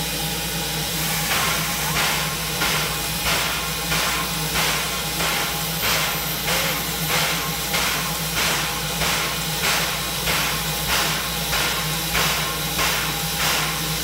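Standing steam locomotive hissing steadily, with a regular puff of steam starting about a second in and repeating about three times every two seconds.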